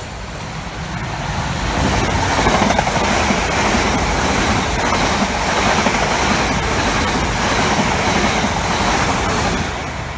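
Siemens Desiro electric multiple unit passing through the station at speed. A steady rush of wheels on rail and air swells over the first two seconds as it approaches, holds loud for about seven seconds, then fades as the last carriage goes by.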